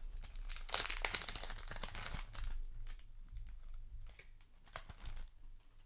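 Booster pack wrapper and trading cards being handled: a stretch of crinkling and rustling from about a second in, then lighter scattered clicks and taps of the cards.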